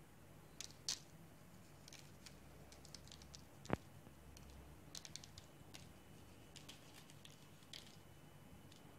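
Faint, scattered light ticks of nigella seeds sprinkled by hand onto pastries on a parchment-lined baking tray, with one sharper click a little under four seconds in.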